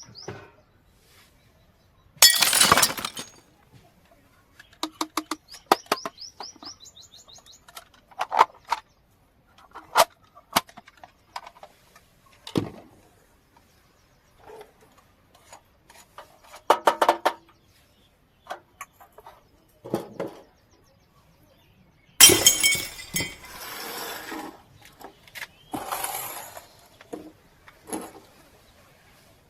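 Small toy kitchen pieces being unpacked and handled, making irregular clicks, taps and clinks, with crinkling of packaging twice, near the start and about two thirds of the way in.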